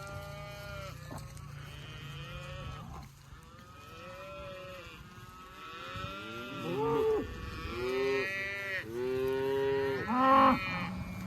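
Cattle mooing and bawling, many drawn-out calls overlapping one another, the loudest about two-thirds of the way through and near the end. A low steady hum runs under the first few seconds.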